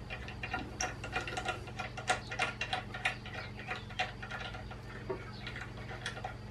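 Irregular small clicks and ticks of a clamp knob being turned by hand to tighten a moving-head light onto its mounting bracket, over a faint steady hum.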